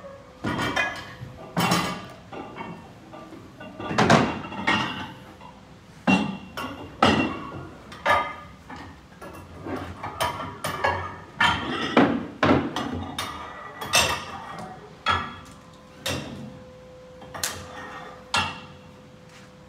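Iron barbell plates and collars clanking against the bar's sleeves and each other as they are slid on and adjusted: a run of irregular metallic knocks and clinks.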